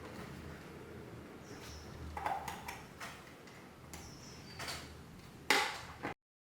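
Plastic clicks and scrapes of a PLC's plastic housing being pried apart with tweezers, its snap-fit locks clicking as they release. There are a few short clicks, the loudest near the end, and then the sound cuts off suddenly.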